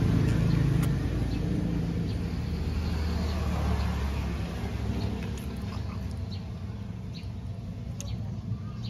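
Low rumble of a passing vehicle, fading away over the first few seconds, then light scraping and a few small clicks as a fish is scaled by hand.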